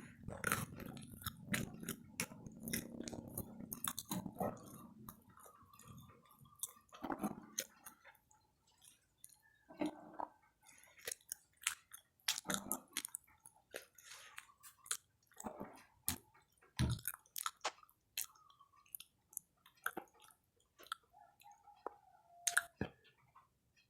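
Close chewing of fried gorengan snacks: an irregular run of crunching clicks and mouth sounds.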